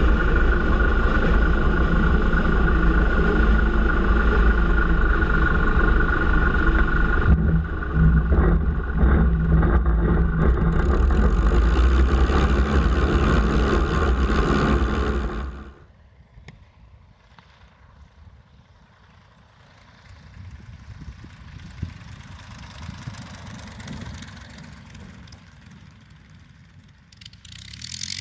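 Auster J4 light aircraft's engine and airflow heard close from the wing. About 7 seconds in the sound changes, then comes a run of knocks and bumps as the wheels touch down and roll on grass. Halfway through the loud noise cuts off abruptly to quiet open air, where a distant light aircraft's engine rises faintly and grows louder near the end.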